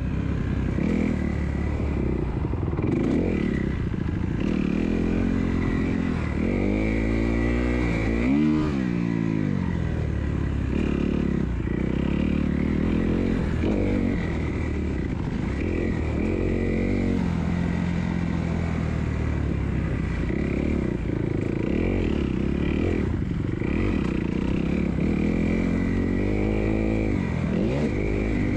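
Kawasaki 250F four-stroke motocross bike's single-cylinder engine being ridden hard, revving up and down with the throttle and gear changes. Its pitch climbs and falls again and again, with one sharp rev rising and dropping about eight seconds in.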